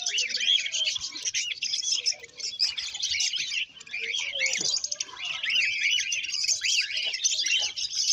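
Dense chorus of many small caged birds chirping and twittering over one another, with quick short chirps throughout.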